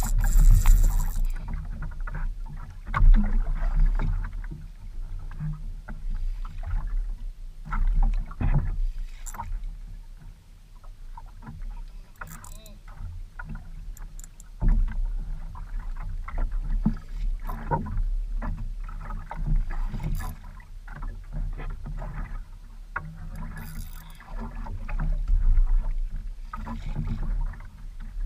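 Water slapping and sloshing against a small wooden outrigger boat's hull, with a low wind rumble on the microphone and irregular knocks and splashes.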